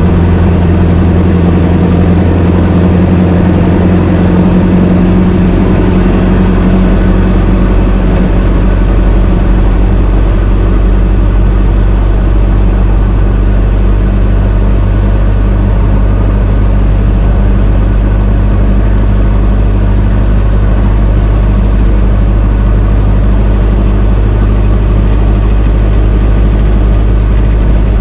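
An old car's engine running steadily at an even, low pitch, with no revving.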